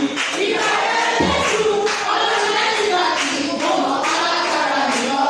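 A group of voices singing a Yoruba gospel chorus together, with hand clapping.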